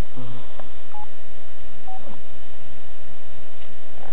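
Cell phone keypad beeping as its buttons are pressed: two short single-pitch beeps, about a second in and again about two seconds in, over a steady hum.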